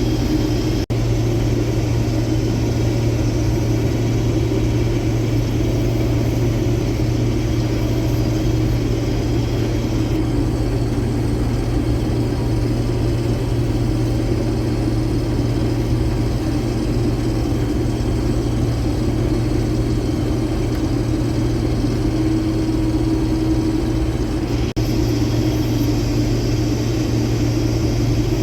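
Combine harvester running steadily while cutting soybeans: a constant engine and machinery drone that cuts out briefly twice, once about a second in and once near the end.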